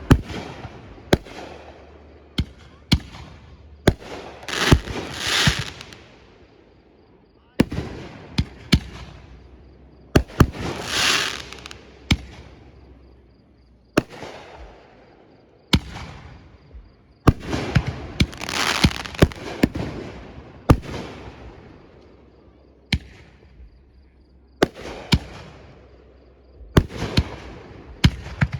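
Fireworks bursting overhead: a long run of sharp bangs at irregular spacing, some in quick clusters, with three long swells of crackling hiss between them.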